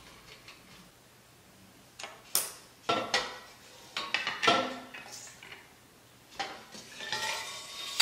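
Aluminium extrusion frame parts, brackets and hand tools clinking and knocking against a granite countertop as they are handled: a few sharp clicks and knocks through the middle, then a longer stretch of handling noise near the end.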